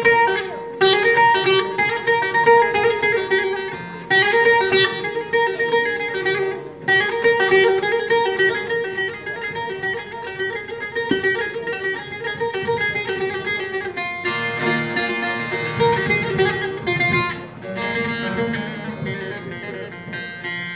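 Two bağlamas (Turkish long-necked saz lutes) playing an instrumental interlude: a fast plucked and strummed melody in short phrases over a steady ringing drone note, with brief breaks between phrases.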